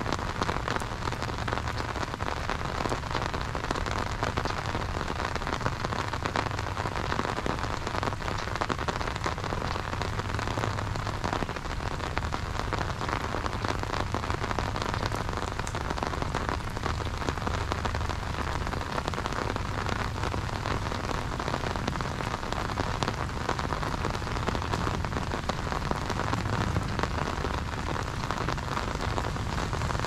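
Steady rain falling on an umbrella held overhead and on a wet paved road: a dense, even hiss thick with tiny drop ticks.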